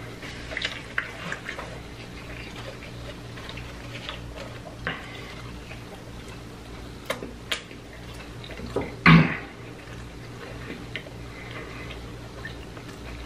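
A person eating fried chicken fingers close to the microphone: chewing and small mouth clicks and smacks, with a louder knock about nine seconds in, over a steady low hum.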